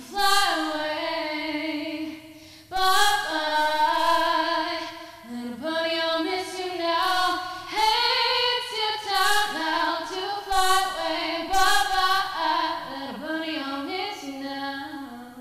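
A woman singing unaccompanied, holding long, wavering notes in phrases with short breath breaks about three and five and a half seconds in.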